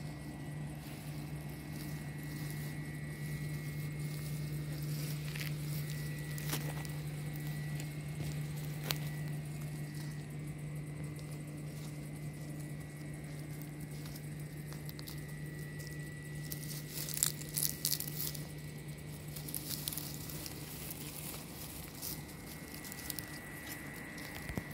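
A Greek tortoise crawling through dry grass and crumbly soil, making faint rustling and crackling with a few sharp clicks, a cluster of them about two-thirds of the way in, over a steady low hum.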